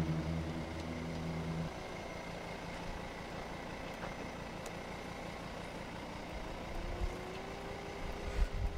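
Last electric guitar chord ringing out through a small Vox combo amp and cut off abruptly about a second and a half in. Steady amp hiss and hum follow, with a faint thin tone, and low bumps near the end as the guitar is handled.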